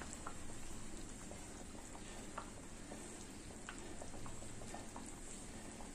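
Coconut-milk fish curry simmering on a low flame in an earthenware pot: a faint steady hiss with scattered small bubbling pops as the sauce thickens.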